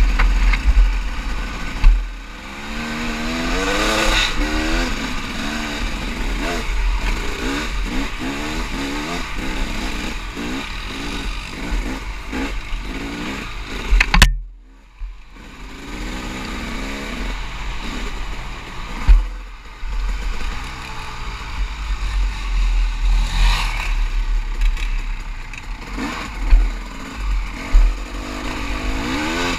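Dirt bike engine revving up and falling back again and again as the bike is ridden along a rough trail, with wind rumbling on the microphone. A loud knock just after halfway is followed by a second of near quiet, and a few more knocks come later.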